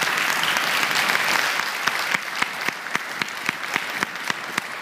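Audience applauding: dense clapping at first, thinning to scattered individual claps about halfway through.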